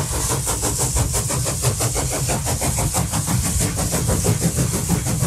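A steady, machine-like rumble, like a running engine, with a fast, even pulse at a constant level.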